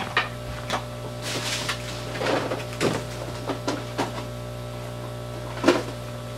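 Scattered clicks, knocks and light rustles of small tools and parts being handled on a workbench, over a steady low electrical hum. The loudest knock comes near the end.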